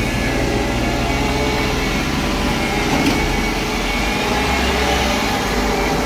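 Heavy farm machinery running steadily: a diesel engine's low hum with a few constant whines over it.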